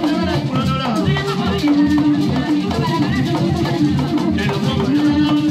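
Kiganda dance music: drums and shaker rattles beating a dense rhythm, with group singing over it.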